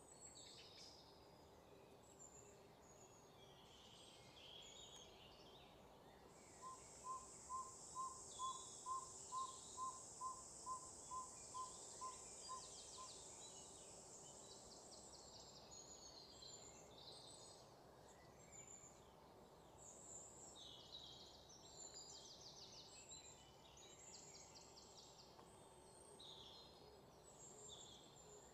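Faint woodland ambience with scattered bird calls. A high insect buzz holds for several seconds, and about a quarter of the way in comes a run of about a dozen evenly spaced short notes, roughly two a second.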